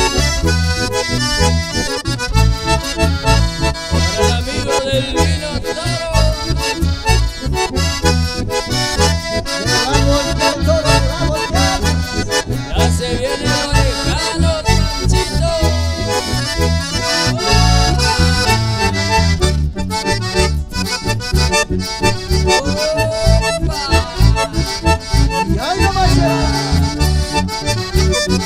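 Live instrumental band passage: accordion and bandoneón carry the melody over strummed acoustic guitar and electric bass, with a steady, even beat.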